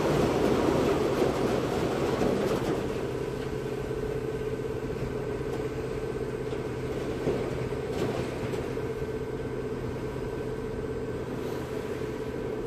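The Älvfrida river ferry's engines running steadily under way, a low hum with a steady higher whine on top, over the rush of water churned up astern. The water noise is louder for the first couple of seconds, then eases.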